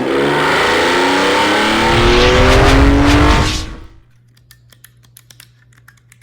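A car engine revving hard as the car accelerates, its pitch climbing steadily, then fading out about four seconds in. Faint, scattered clicks follow.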